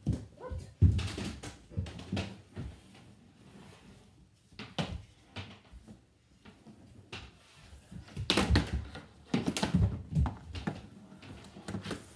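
Plastic floor-hockey sticks clacking against each other and slapping the hardwood floor and puck, in irregular knocks and thuds. There is one sharp hit about a second in and a flurry of hits near the end.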